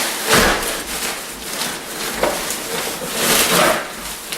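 Riveted mild-steel chainmail hauberk being lifted out of its plastic wrapping, its rings clinking and rustling as they shift. There is a knock about a third of a second in and another hit about two seconds in.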